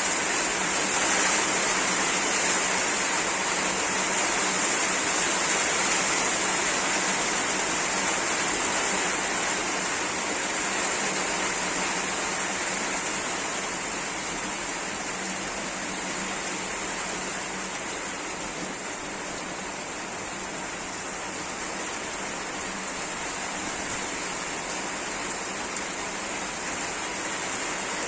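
Heavy rain in wind, a steady rushing hiss that eases slightly about halfway through.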